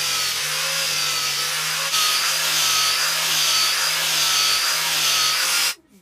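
Angle grinder fitted with a sanding disc running on the cross-cut face of a wooden log slice: a loud hissing rasp over a steady high motor whine that wavers as the pad is pressed and moved over the wood. It cuts off abruptly near the end.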